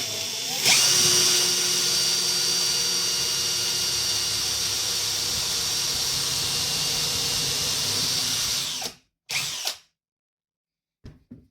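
Parkside Performance 20V cordless drill running while boring a hole: a steady motor whine that swells about half a second in, holds for about eight seconds and cuts off, followed by one short burst.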